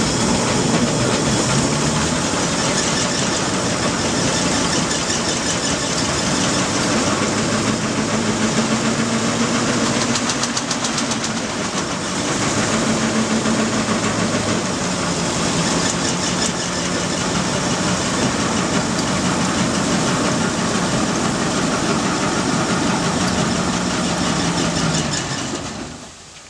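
An 11x12 steam logging donkey engine running under steam, with a loud mix of chuffing and steam hiss over a mechanical rumble. Its speed rises and falls several times, and it shuts off near the end.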